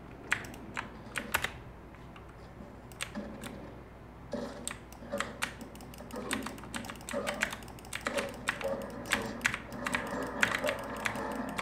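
Computer keyboard keys and the buttons of a K World Gaming Orion-M1 mouse clicking irregularly, several clicks a second, during fast first-person-shooter play. Faint game sound with held tones lies underneath from about four seconds in.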